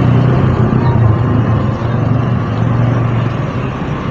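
Bus diesel engine idling steadily, a low drone that eases off slightly about two seconds in.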